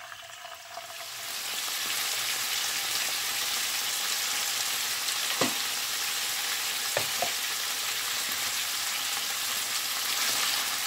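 Cubed beef sizzling in hot oil in a nonstick pan as it is seared over high heat. The sizzle swells about a second in as more meat goes in, then holds steady, with two light knocks near the middle.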